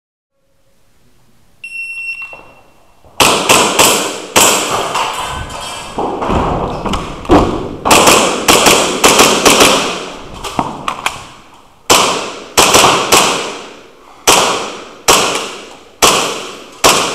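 An electronic shot-timer start beep, then a string of shots from a custom Hi-Capa 5.1 gas blowback airsoft pistol with BBs hitting targets. The shots come in quick runs at first and then slow to about one every half to three-quarters of a second, each with a short ringing tail.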